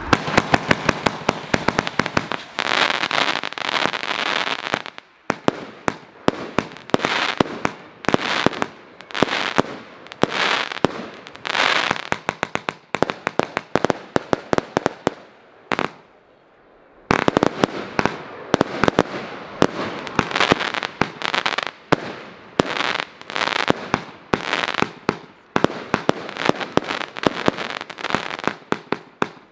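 Color Cracking Storm consumer firework battery firing a rapid run of shots, each bursting into a dense crackle of stars. The firing breaks off for about a second and a half around halfway through, then resumes.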